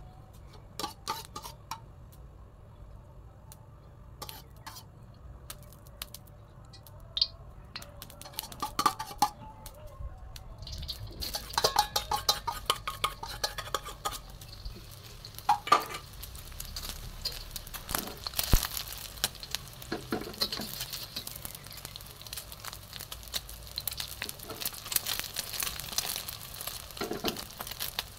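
Beaten egg frying in hot oil in a steel wok: a steady sizzle that starts about a third of the way in, after scattered clinks and knocks, with the knock and scrape of a spatula against the wok.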